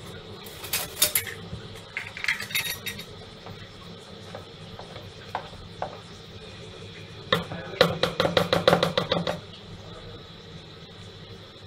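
Eggs being cracked against a bowl of thick gram-flour batter and a metal spoon clinking against the bowl, with scattered clicks in the first few seconds and a quick run of clinks about two thirds of the way through.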